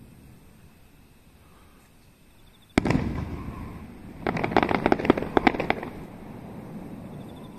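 Aerial firework shell bursting with a sudden bang about three seconds in, its rumble dying away, followed by about a second and a half of rapid, loud crackling pops.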